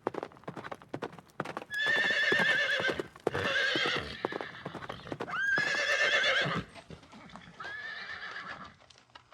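Horse hooves clip-clopping in quick irregular strikes, then four whinnies of about a second each with a shaky, quavering pitch; the last one is quieter.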